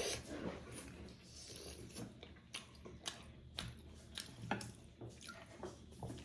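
A person chewing and eating buffalo momos, with soft wet mouth sounds and irregular light clicks and smacks.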